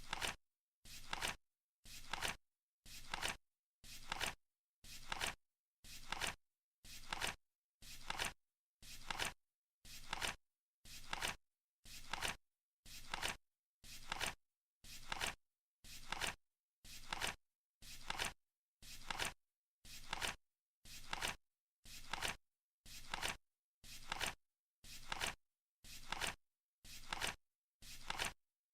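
Flip clock ticking once a second: a short two-part clack as each card flips, then silence until the next.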